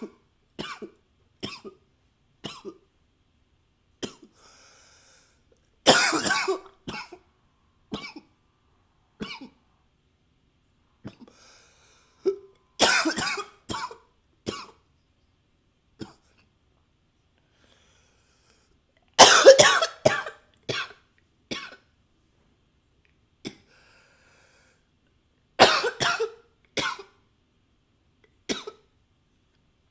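A man coughing again and again: four fits of several coughs in a row, about every six to seven seconds, with single smaller coughs between them.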